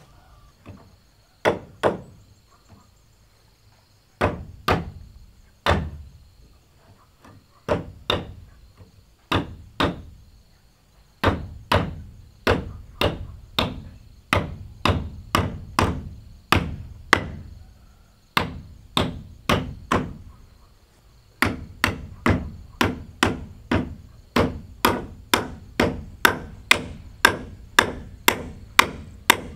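A hand tool striking wood again and again, in runs of sharp blows with short pauses between them, coming faster and more steadily toward the end. A faint, steady, high-pitched drone runs underneath.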